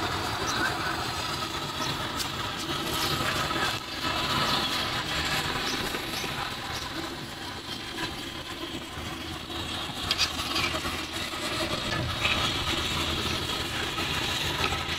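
Steady hissing noise with a low rumble at a street-side deep-fry stall, where fries are frying in a wok of hot oil. A few sharp metal taps come about ten seconds in, around when the wire fry basket is emptied onto the tray.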